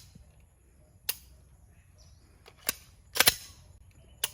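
Pistol shots fired at uneven intervals, about five in all, with two close together a little past three seconds in.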